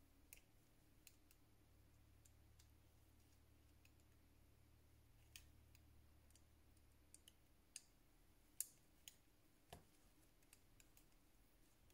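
Sparse, faint clicks and taps of small hand tools against a smartphone's parts during a screen replacement; the sharpest click comes about two-thirds of the way in. A faint low hum underneath stops partway through.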